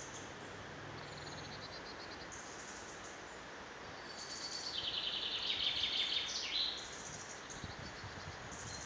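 Woodland songbirds singing high-pitched trills over a steady background hiss. The loudest is a fast trill about five seconds in, lasting about two seconds and dropping in pitch at its end.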